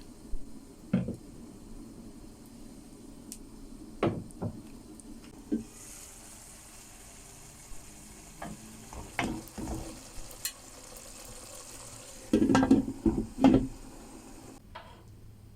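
Food sizzling in a frying pan while a utensil stirs it, knocking and scraping against the pan. The loudest knocks come in a quick cluster about three-quarters of the way through. The sizzle and the low background stop abruptly near the end.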